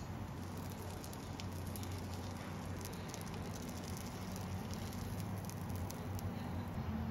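Egg-battered zucchini slices frying in shallow oil in a pan: a steady sizzle with many small crackling pops, over a low steady hum.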